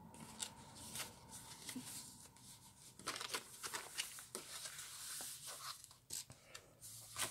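Paper pages of a handmade junk journal being turned by hand: faint, irregular rustles and soft flaps, busier from about three seconds in.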